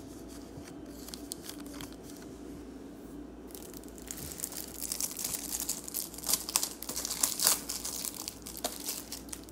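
Plastic trading-card packaging crinkling and tearing in the hands, irregular and crackly, starting about four seconds in after a few quiet seconds with only small clicks.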